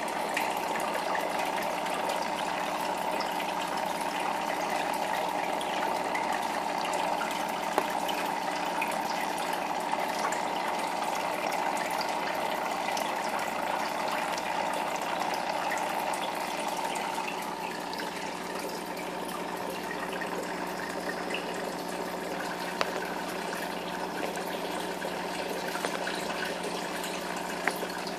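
Aquarium filter running: a steady splashing trickle of its outflow water, which is broken up by objects placed in the stream, over a low steady hum. The water sound eases a little about two-thirds of the way through.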